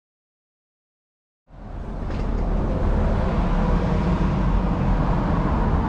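Silence for about a second and a half, then a steady outdoor rumble, heaviest in the low end, fades in and holds, like road traffic or wind on the microphone.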